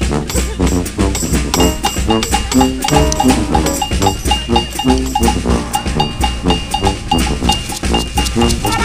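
Live band music: a drum kit keeps a steady, busy beat under a tuba bass line and keyboard, with brass joining in.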